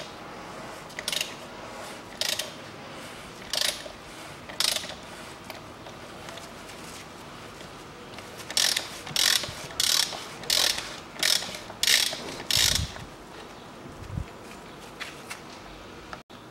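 Socket ratchet clicking in short bursts on each back-swing while loosening the oil filter housing cap with a 32 mm socket. The bursts come slowly at first, then quicker, about every 0.6 s, from about eight seconds in. Two dull low thumps follow near the end.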